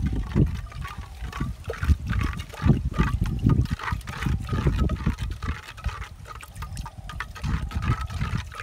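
A bare hand stirring and sloshing liquid in a clay pot, mixing in a white powder, with irregular splashes over a low rumble.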